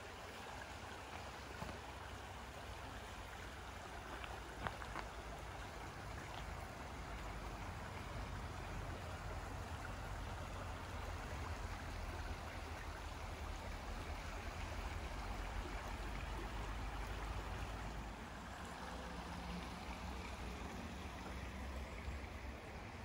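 A shallow woodland stream flowing over stones: a steady, gentle rush of water, with a low rumble underneath.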